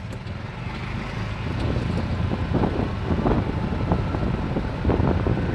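Golf cart in motion: a steady low rumble of the bouncing ride with wind buffeting the microphone, getting louder over the first couple of seconds.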